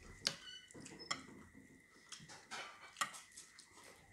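Metal spoons clinking against ceramic bowls and plates: several faint, scattered clicks.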